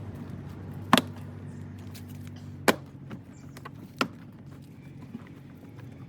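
Three sharp knocks as a car door trim panel is pressed back onto its clips, about a second and a half apart, over a low steady hum.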